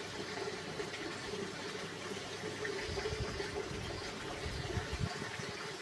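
Steady rushing outdoor noise, like running water, with uneven low rumbles from about three seconds in.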